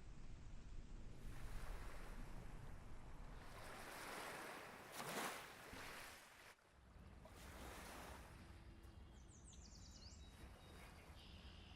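Faint outdoor ambience with several slow swells of noise rising and falling, and a few short high chirps near the end.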